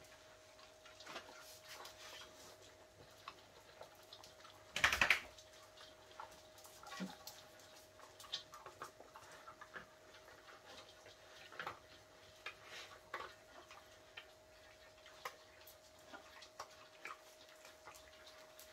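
Puppies and a cat eating dry kibble from one bowl: irregular small crunches and clicks of kibble against the bowl, with one louder brief noise about five seconds in.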